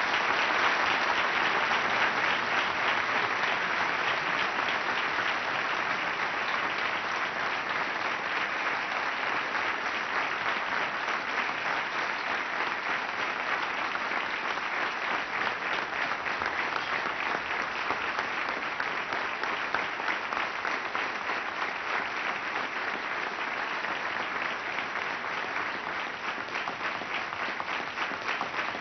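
Audience applauding: a long round of clapping that starts at once and slowly dies down toward the end.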